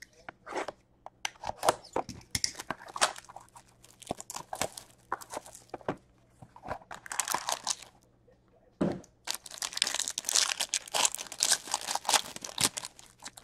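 Hands handling a hockey-card hobby box with short taps and scuffs, then, from about nine seconds in, tearing open a card pack with a dense crinkling of the wrapper.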